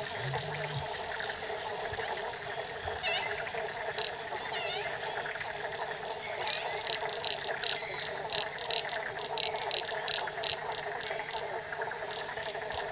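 A dense chorus of frogs calling continuously at a lagoon at dusk. Over it come a couple of brief high chirps about three and five seconds in, then a run of sharp high notes, about three a second, through the middle and later part.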